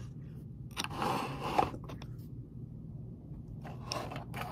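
Hands brushing and scraping against the phone close to its microphone, in two rustling stretches, about a second in and again near the end, over a steady low hum.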